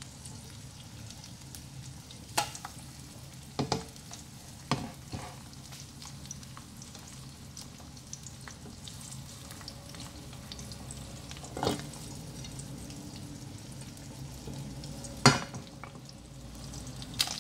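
Egg frying in oil in a nonstick frying pan: a steady sizzle broken by a handful of short, sharp clicks, the loudest about fifteen seconds in.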